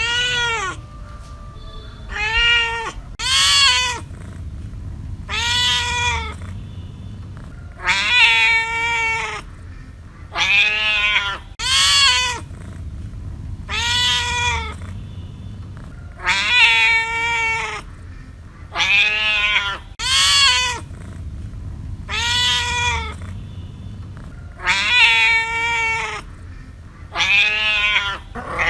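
A cat meowing over and over, about sixteen calls each under a second long, every one rising and then falling in pitch.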